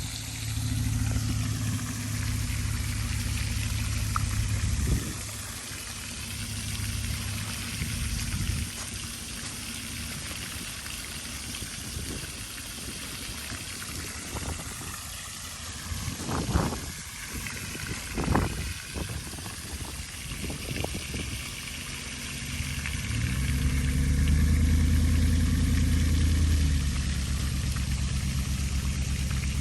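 A vehicle engine running steadily, then quieter, with a few sharp knocks around the middle. About 23 seconds in it revs up, grows louder, and settles into a steady run.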